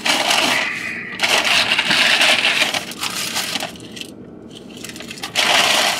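Paper fast-food bag rustling and crinkling as it is opened and rummaged through, in long crackly stretches with a quieter lull about four seconds in.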